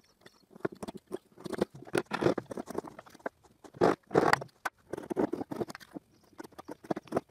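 Wood chisel paring away the round corners of a drilled mortise in oak: irregular scraping and cutting strokes, with a few louder strokes a couple of seconds in and again around the middle.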